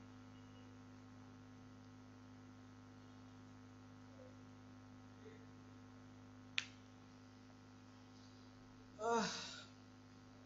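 Steady electrical mains hum in the recording, with a single sharp click about two-thirds of the way through and a brief voiced sound, like a short sigh or murmur, near the end.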